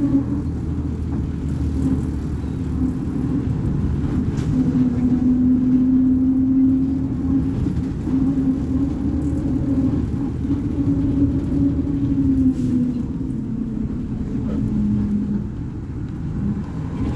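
Volvo B58 bus's straight-six diesel engine running under way. Its steady hum rises and falls in pitch with engine speed, dropping noticeably about four seconds in and again near the end.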